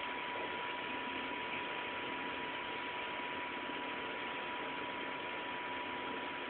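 Steady hiss of recording noise with a thin steady tone, without any distinct knocks, barks or other events.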